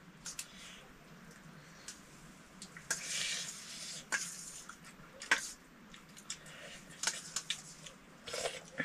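Scattered light clicks and clinks of eating utensils against a bowl while soup noodles are eaten, with a short noisy burst about three seconds in.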